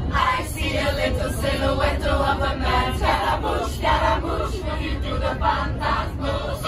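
A group of girls singing together in unison inside a moving coach, over the steady low rumble of the bus on the road.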